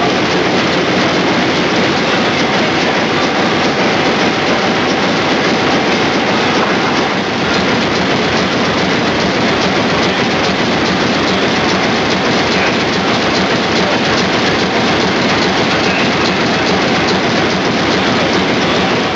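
Large Allen stationary diesel engine running: a loud, steady mechanical clatter.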